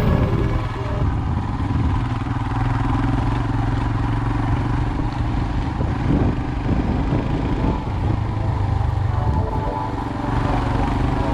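Royal Enfield Himalayan's single-cylinder engine running at a steady, even pace while riding off-road, with a few knocks and rattles about six to seven seconds in.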